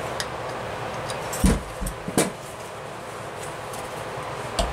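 Three dull knocks and clunks, the loudest about two seconds in, as a carburetor body and an open-end wrench are handled and set down on a towel-covered bench, over a steady background noise.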